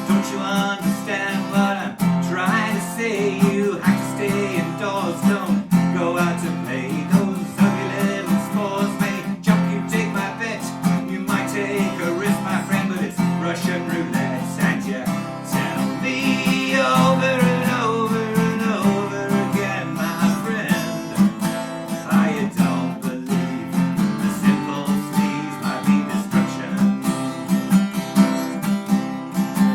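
Acoustic guitar strummed in a steady rhythm, the backing of a folk-rock protest-song parody.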